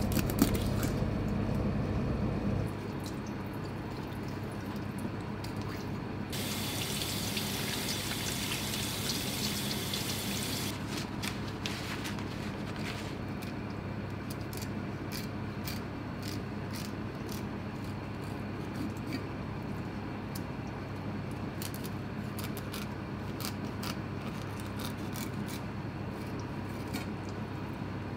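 A knife filleting Pacific saury on a plastic cutting board: scattered light clicks and scrapes of the blade. A tap runs for about four seconds partway through.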